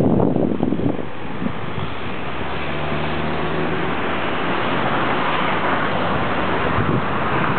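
A tram approaching on the track: a steady rolling rumble of wheels on rails that swells over the second half, with a low hum for a second or so around three seconds in. Wind buffets the microphone in the first second.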